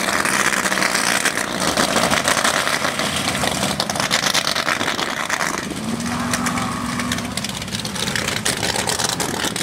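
Engines of big-tyred lifted mud-bog trucks running loud and rough.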